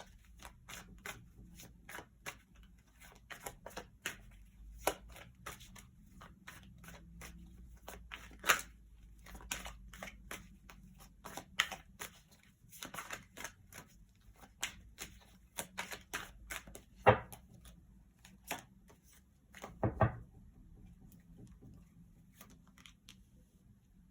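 Tarot cards being shuffled and handled: a long run of quick soft flicks and clicks with a few louder snaps, thinning out near the end.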